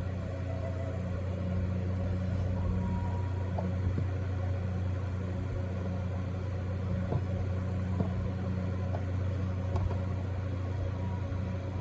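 RV air conditioner running: a steady low hum, with a few faint clicks and taps over it.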